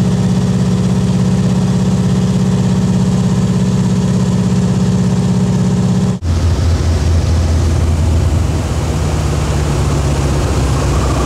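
Single-engine floatplane's propeller engine droning steadily, heard from inside the cabin. About six seconds in the sound breaks off for an instant and comes back with a lower, rougher engine note.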